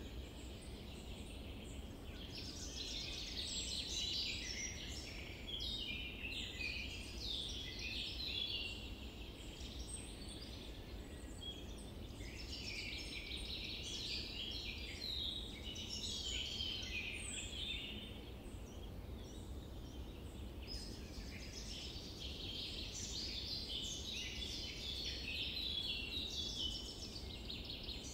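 Forest ambience of many small birds chirping and calling in overlapping bouts, over a low steady rumble.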